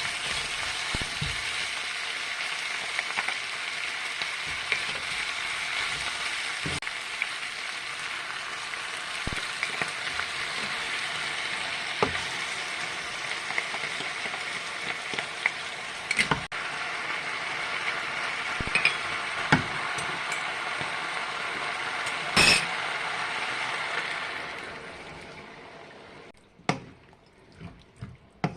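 Food sizzling in a frying pan as it is stirred, with occasional sharp clinks of a utensil against the pan. The sizzle dies away near the end, and a few separate sharp knocks follow.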